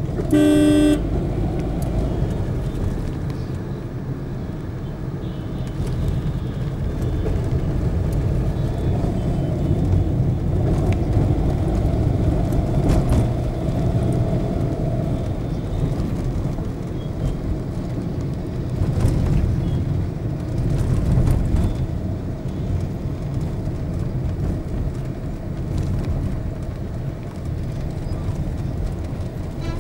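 Steady engine and road rumble from driving in dense city traffic, with a short horn honk right at the start.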